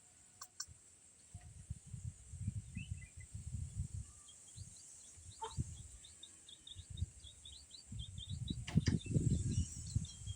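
Small birds chirping in quick runs of short high notes, over gusts of wind buffeting the microphone that come in two spells, the second and louder one near the end.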